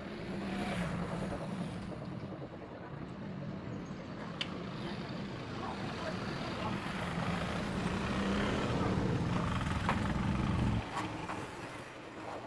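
A motor vehicle's engine running, a steady hum that grows louder and cuts off suddenly near the end, with a few light clicks over it.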